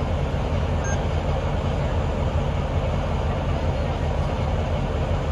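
Diesel locomotive engine idling: a steady low rumble that holds at one level.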